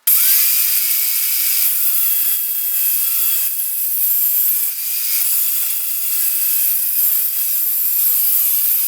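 Electric power tool starting up abruptly and running steadily under load on wood, a motor whine over a rasping cutting hiss, then stopping suddenly near the end.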